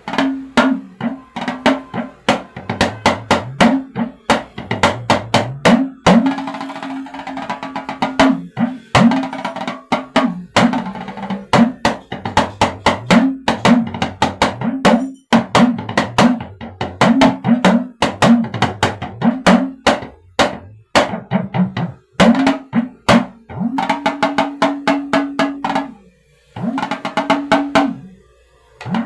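Talking drum played solo: quick runs of stick strokes whose pitch holds, slides down and rises again as the tension is squeezed and released, with a short break near the end.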